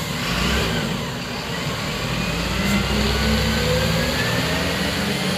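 Diesel engine of a rear-loading refuse collection truck pulling away, its pitch rising as it accelerates.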